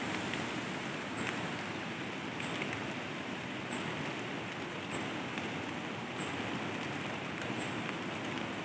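Steady rain falling on dense forest foliage, an even hiss with no break.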